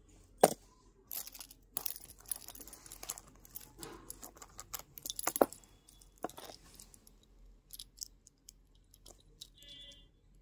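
Metal jhumki earrings clinking and jingling as they are handled and set down on the tray: an irregular scatter of sharp clicks, loudest about half a second in and again around five seconds in.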